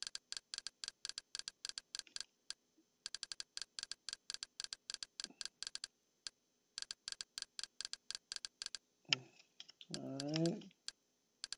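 Rapid, evenly spaced menu-navigation clicks, about five a second, in runs broken by short pauses, as a Kodi add-on list is scrolled through item by item. Near the end comes a brief low murmur of a man's voice.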